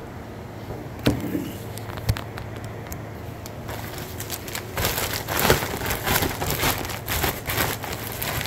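Plastic poly mailer bag crinkling and rustling as it is handled, after a couple of sharp knocks in the first two seconds; the crinkling grows louder about four seconds in.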